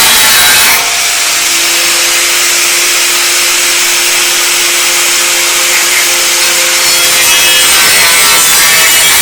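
Electric angle grinder running continuously, cutting into a steel motorcycle frame: a steady whine over harsh grinding noise, with the whine dropping slightly in pitch about a second in.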